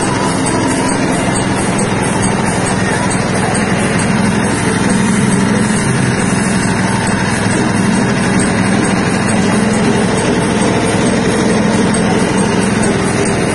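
Soybean dehulling and hull-separating machine running steadily: a loud, even machine noise with a low hum, as the split soybeans are shelled and pass through it.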